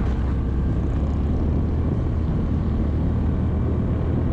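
Honda Cross Cub 110's air-cooled single-cylinder engine running steadily while the bike is ridden, with a constant low hum.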